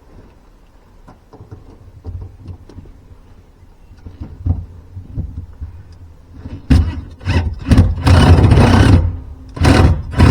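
Light scattered clicks of handling, then from about seven seconds in a quick run of sharp knocks followed by two loud bursts of rattling clatter.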